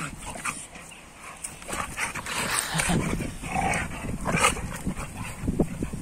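Two pit bulls play-fighting: dog noises and scuffling as they wrestle, busier from about two seconds in, with one sharp loud sound about four and a half seconds in.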